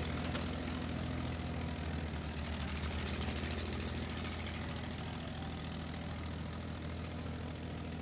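Engine idling steadily, a low even drone with no revving.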